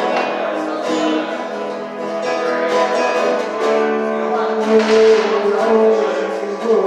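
Live music: an acoustic guitar playing through a song.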